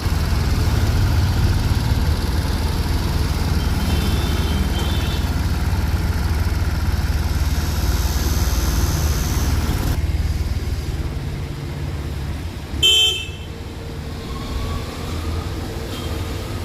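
Steady low rumble of road traffic, with a brief vehicle horn toot about four seconds in and a louder short horn blast about thirteen seconds in.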